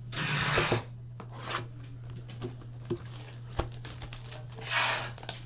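Plastic wrapping on a box of trading cards being torn open and crinkled: two ripping bursts, one at the start and one near the end, with small taps and clicks of handling between, over a steady low electrical hum.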